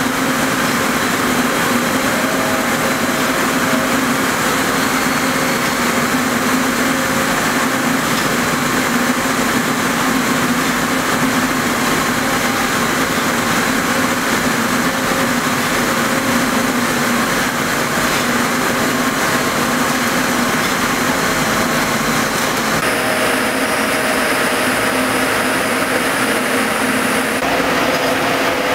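Rows of Rieter ring spinning frames running in a spinning mill hall: a steady, dense machine din with a constant low hum underneath. A high hiss joins in for a few seconds near the end.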